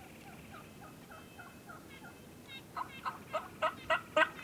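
Wild turkey yelping: a faint run of short, falling yelps, then from about two and a half seconds in a loud, sharp run of yelps at roughly three a second, growing louder.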